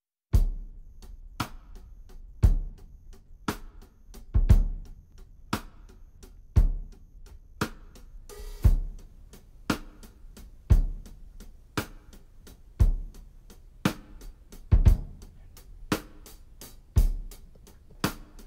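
Drum kit beat of background music: a bass drum and snare striking about once a second, with lighter hi-hat and cymbal taps between.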